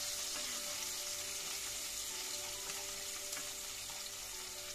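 Chopped onion, ginger, garlic and green chillies frying in hot mustard oil in a kadai: a steady sizzle that eases off slightly toward the end.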